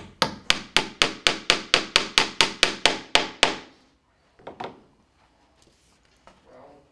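Small hammer tapping quickly and evenly on cork roadbed laid over half-inch plywood subroadbed: about fifteen strikes at roughly four a second, stopping after three and a half seconds. A brief softer rustle follows about a second later.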